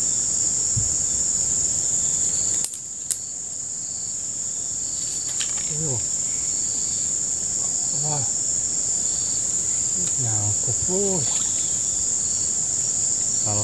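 Steady high-pitched drone of an insect chorus. There is a sharp click about three seconds in, and a few short low murmurs from a man's voice in the second half.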